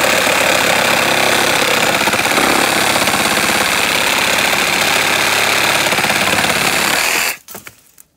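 Makita DJR186Z 18V brushed cordless reciprocating saw running at full speed, its blade cutting through a thick piece of pallet timber with a steady, loud buzz. It stops suddenly about seven seconds in as the blade comes through the wood, followed by a few faint knocks.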